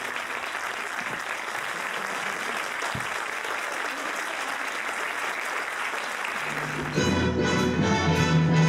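Audience applauding for about seven seconds, then a youth orchestra comes in, louder than the applause, with sustained chords.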